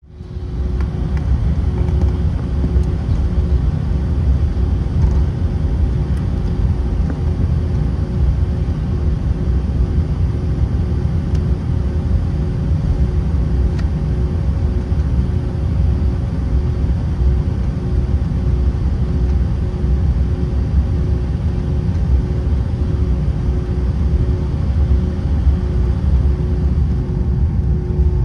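Steady low rumble of airliner cabin noise inside an Airbus A319, with a faint steady hum over it and no change in level.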